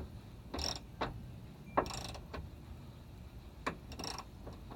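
Ratchet wrench clicking in several short bursts with pauses between them, as it tightens a 10 mm nut on a liftgate gas-strut stud pin.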